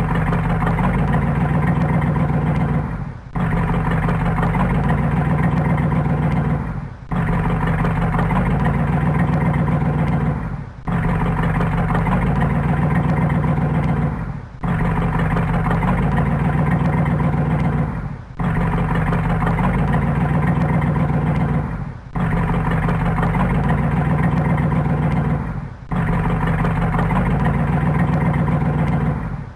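Car engine running steadily, a sound of just under four seconds repeated over and over, with a brief dip in loudness between each repeat.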